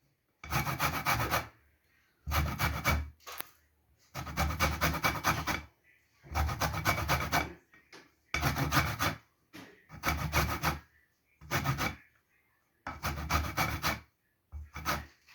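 Lemon peel being grated on a metal hand grater: about ten rasping strokes, each up to a second and a half long, with short pauses between them.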